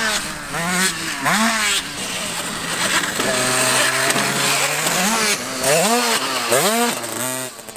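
Petrol dirt bike engine revving up and down over and over as the bike is ridden, its pitch rising and falling several times. A steady note holds for a couple of seconds in the middle, and the sound drops away just before the end.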